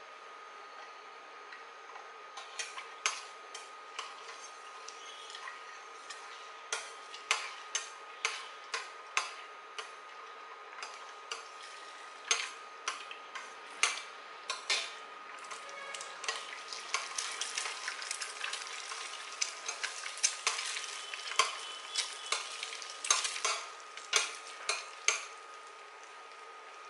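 Eggs sizzling in hot oil in a stainless steel pot while a metal spoon stirs and scrambles them, clinking and scraping against the pot many times from about two seconds in.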